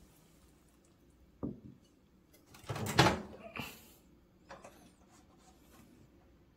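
Microwave oven door unlatched and pulled open with a loud clunk and rattle, after a lighter knock; a few small clicks follow.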